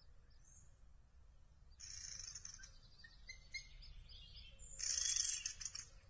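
Birds chirping, with short high notes scattered through, and two bursts of hissy, high-pitched sound, one about two seconds in and a louder one near the end.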